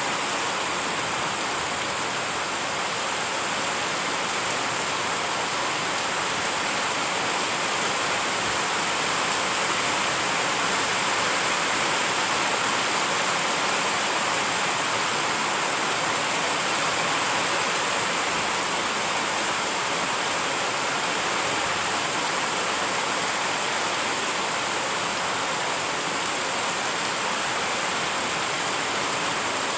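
Heavy rain pouring down steadily, a dense, even hiss that swells slightly about halfway through.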